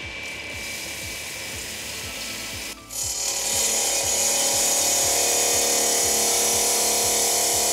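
Raimondi Pikus 130 wet tile saw running. About three seconds in, its freshly dressed diamond blade bites into porcelain tile and the sound jumps to a loud, steady cutting noise that holds.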